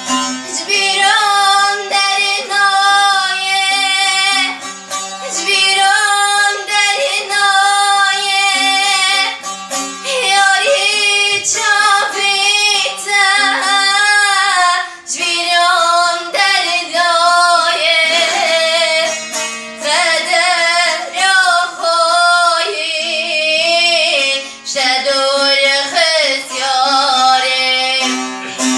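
A woman singing a Kurdish song in long, wavering, ornamented phrases with short breaks between them, over instrumental accompaniment.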